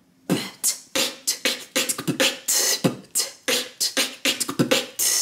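Beatboxed drum pattern made with the mouth: kick (B), hi-hat (T) and snare made with an inward K, in the sequence B-T-K-T-K-K-T-K-B-K-T. A steady rhythm of about three to four sharp strokes a second.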